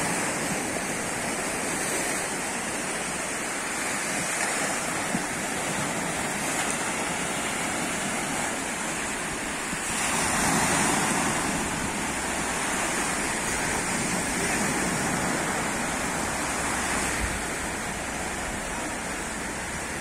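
Sea waves washing on the shore: a steady rushing noise that swells about ten seconds in.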